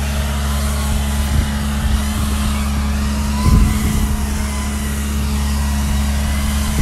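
Bark blower truck's engine and blower running at a steady speed, a constant low drone, with a fainter higher whine that rises and falls. A few dull thumps, the loudest about three and a half seconds in.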